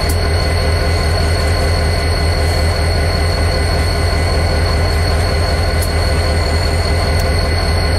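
Union Pacific diesel locomotive standing close by with its engine running as a steady low drone, while covered hopper cars roll past on the next track. A few sharp clicks come through, twice near the start and twice near the end.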